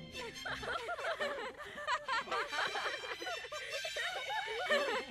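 A group of children laughing and giggling together, many high voices overlapping. Orchestral music stops within the first second.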